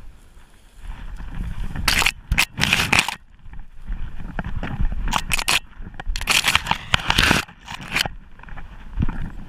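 Bracken fronds swishing and crackling against a gundog's body-mounted camera as the dog pushes through the cover. It comes in several bursts, the longest from about six to seven and a half seconds in.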